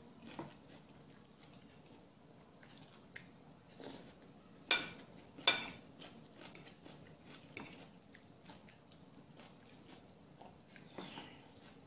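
Close-up eating sounds: a person biting and chewing food, with two sharp clicks about a second apart near the middle.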